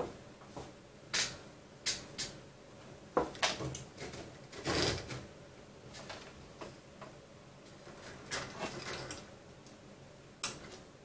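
Scattered small clicks, taps and rustles of hands working a toothed belt and plastic printer parts, untwisting the belt; a longer rustle about five seconds in.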